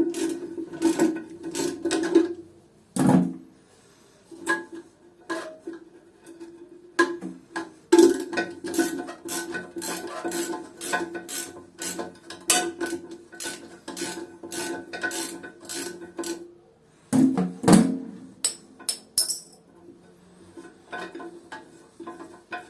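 Socket ratchet clicking in quick runs, about three clicks a second with short pauses, as it undoes a tight 22 mm plastic nut on a toilet fill valve, over steady background music.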